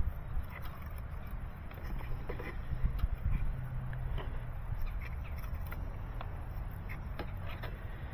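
Handling noise as fiber drop cable is coiled by hand: scattered light clicks and scratching, over a steady low rumble.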